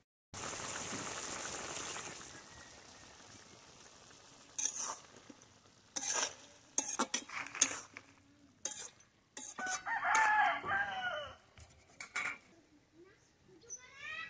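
Curry sizzling in a hot pan, loudest at first and fading, with clacks of a utensil stirring against the pot. A rooster crows once, about ten seconds in.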